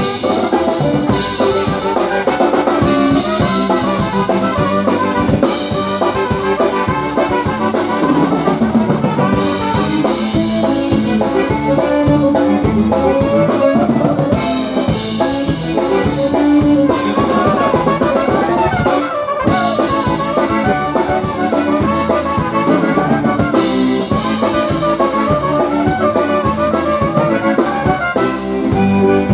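Live polka band playing dance music, with trumpet and trombone over a drum kit. The music stops for a split second about two-thirds of the way through.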